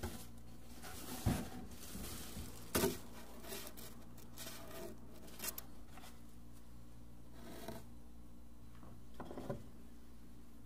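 Tissue paper rustling and crinkling as it is pulled out of a cardboard box, with light handling of small items inside the box. The noise comes in short separate rustles, the loudest about a second in and again near three seconds.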